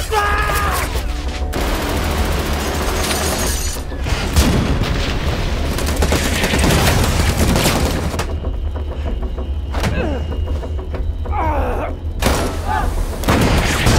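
Battle soundtrack of a naval gunfight: rapid cannon fire and the booms of shells striking a ship, under dramatic music. Men shout near the start, and a shouted order to fire comes near the end.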